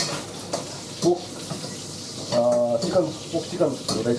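A person talking in short phrases over a steady hiss.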